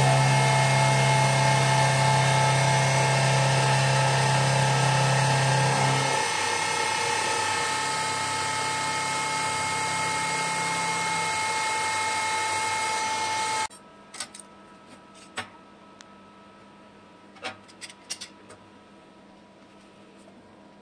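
Milling machine spindle running, cutting an aluminium block, as a loud steady whine with several fixed tones; a low hum under it drops out about six seconds in. The machining cuts off suddenly about fourteen seconds in, followed by a few light clicks and knocks of aluminium parts being handled on a metal bench.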